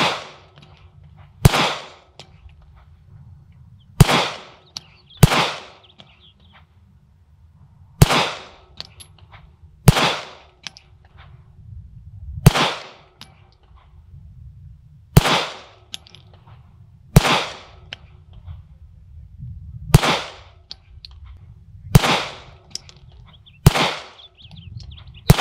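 Staccato P 2011 9mm pistol fired in slow, deliberate single shots, about a dozen of them, one every two seconds or so. Each shot has a short echoing tail.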